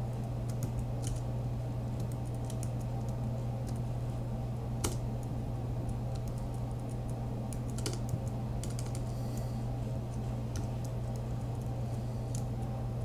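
Typing on a computer keyboard in irregular runs of key clicks while renaming files, over a steady low hum.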